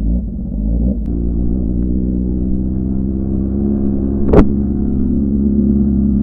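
Motorcycle engine heard from the rider's seat of a Yamaha R15 V4 (155 cc single-cylinder). Its pitch rises in the first second as the bike pulls away, then it runs steadily while riding. A single sharp knock comes about four seconds in.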